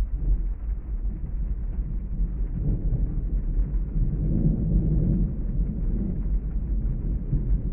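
Rain ambience heard from inside a car: a steady low rumble that swells into a louder rolling rumble about three seconds in and eases off a few seconds later.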